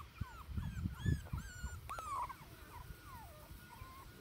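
Teddy bear puppy whimpering: a run of short high whines, several a second, that thins out after about three seconds.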